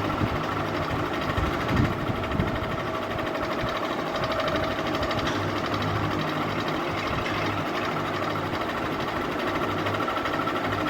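Ceiling fan running steadily: an even motor hum with a fast, regular pulsing, and a few low knocks about two seconds in.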